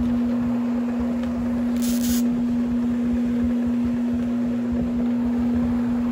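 Electric rotary carpet-cleaning machine running on carpet: a steady, loud motor hum, with a short hiss about two seconds in.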